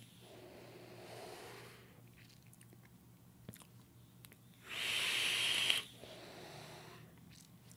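A soft exhale of vapour, then small lip smacks while tasting, then a hissing draw of about a second through a Goon 22 rebuildable dripping atomizer, followed by more lip smacks.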